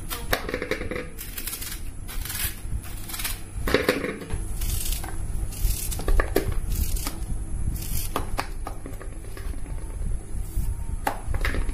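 A knife cutting rounds off a banana stem core over an aluminium bowl, with irregular cuts, the tearing of the stem's stringy fibres and knocks of pieces dropping into the bowl.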